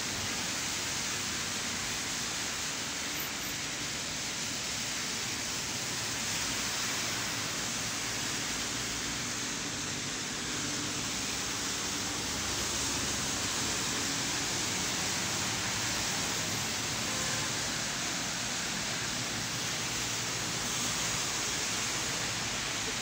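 Rain falling steadily, an even hiss that holds without a break.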